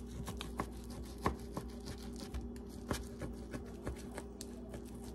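Kitchen knife slicing through raw sirloin steak, the blade tapping on the cutting board in a run of short, irregular clicks. A steady low hum runs underneath.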